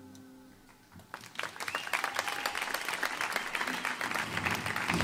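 The last note of an archtop electric guitar dies away, and after a short hush an audience starts applauding about a second and a half in, with many hands clapping.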